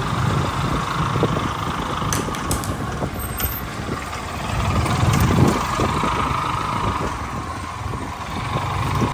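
Motorcycle engine running as it rides slowly through street traffic, with other vehicles around.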